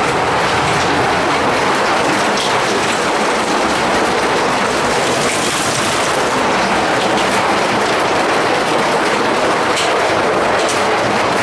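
Heavy hail, stones about the size of garbanzo beans, pelting steadily onto the patio and house in a dense clattering patter, heard from indoors through the glass.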